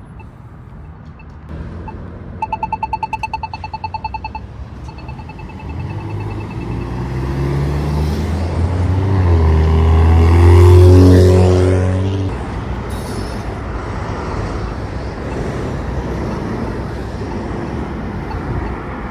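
Polara iNS2 accessible pedestrian push button giving its rapid ticking, several quick ringing ticks a second, which this kind of signal uses to mark the walk interval. The ticking fades, and a heavy vehicle then drives past with a deep engine sound that is loudest about eleven seconds in, leaving steady traffic noise.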